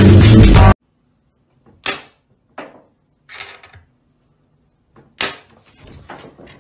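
Loud rock music with guitar and drums cuts off abruptly under a second in. It is followed by near quiet, broken by four short sharp sounds a second or so apart, one of them a brief hiss.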